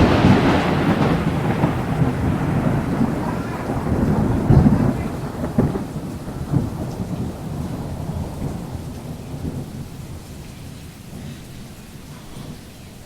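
Thunder rolling in the tail of a close clap, loudest at the start, then rumbling on in swells and slowly dying away over about ten seconds, over falling rain.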